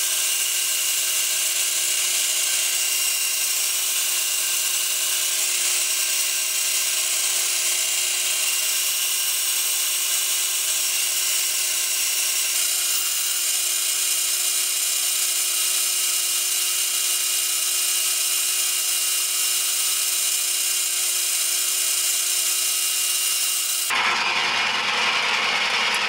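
Benchtop metal lathe running, its cutting tool turning down a metal pulley: a steady motor whine with the hiss of the cut. The sound changes abruptly about halfway through and again near the end.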